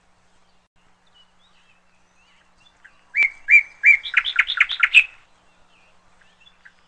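A small songbird singing one phrase of chirps starting about three seconds in: a few even notes, then a quick run of rapid chirps lasting about two seconds.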